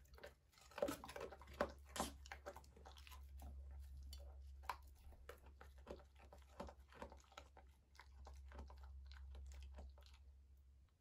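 German Shepherd dogs chewing food, a run of irregular crunches and mouth smacks, loudest in the first couple of seconds and thinning out towards the end, over a steady low hum.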